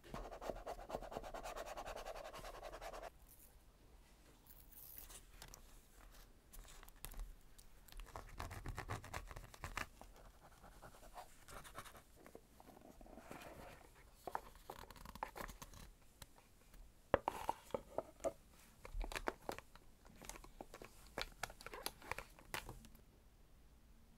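Washi tape being worked onto a paper journal page by hand: a scratchy rasp for about three seconds at the start, then intermittent rubbing and rustling as the tape is pressed down. Sharp small clicks and taps follow in the last several seconds.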